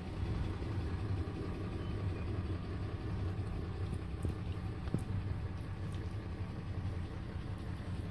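2005 Ford F-150 pickup's engine idling steadily, heard from inside the cab.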